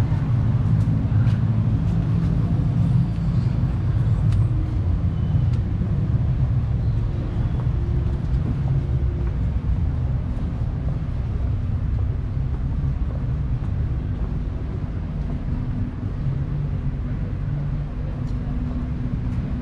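A motor vehicle's engine running, a steady low hum that eases slightly in the second half, with faint street noise and a few light ticks.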